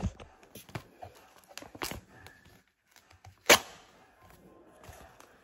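Light rustling and small clicks of a paper shipping label being handled, then one short, sharp rip about three and a half seconds in as the label is torn off the label printer.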